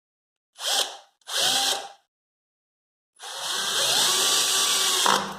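Two-speed drill driver set in high gear, driving a hinge screw into particle board: two short bursts, then a longer run of about two seconds where the motor's pitch rises and holds before it stops near the end. The screw goes in fast.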